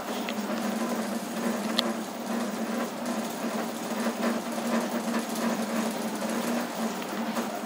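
Home-built CoreXY 3D printer printing: its stepper motors give a steady, wavering mechanical hum as the print head moves, with a brief sharp click about two seconds in.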